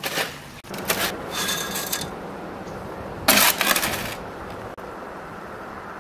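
Bursts of scraping and rushing as wet concrete mix is worked and tipped into the post hole. The loudest burst comes a little past halfway. A steady low hum runs underneath.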